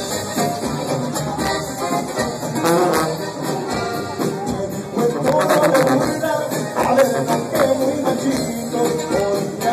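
Live Mexican regional band music played loud through a PA: sousaphone and brass over drums and percussion.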